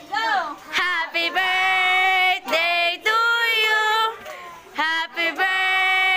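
A child singing in a high voice, holding long steady notes with short breaths between phrases.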